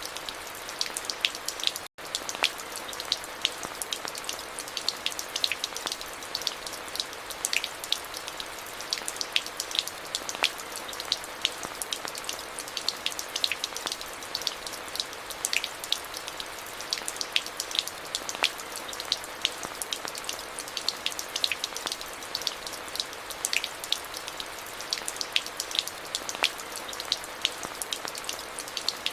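Steady rain, with many sharp individual drops striking close over a constant hiss. A split-second dropout about two seconds in.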